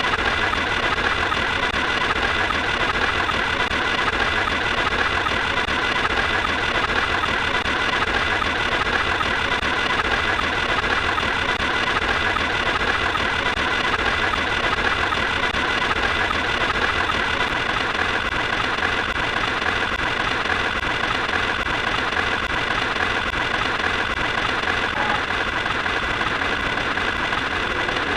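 A motor or engine running steadily.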